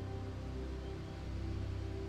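Slow ambient music: held, overlapping tones over a deep, steady low drone.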